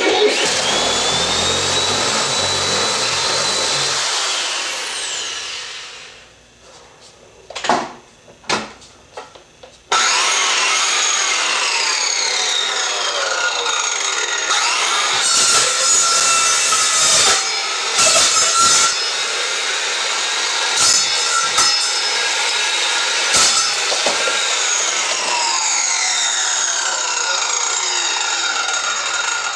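An electric drill boring into the plastic case of a portable cassette recorder for about five seconds, followed by a few sharp knocks. From about ten seconds in, a small circular saw runs and cuts through the recorder's plastic body, with repeated falling whines.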